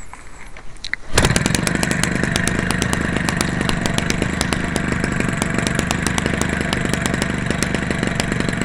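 Homelite 30cc two-stroke engine with a gutted muffler, converted for RC aircraft and turning a propeller, fires up about a second in and then runs steadily, with frequent sharp clicks over the engine note.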